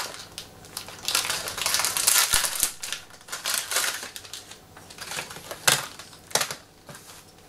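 Thin plastic toy packet crinkling and crumpling as hands tear it open and pull out the wrapped contents. There is a long stretch of dense rustling, then two sharp crackles near the end.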